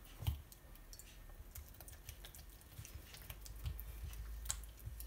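Oiled hands pressing and patting a ball of msemmen dough flat on an oiled countertop: faint, scattered soft taps and sticky clicks, with a dull thump just after the start.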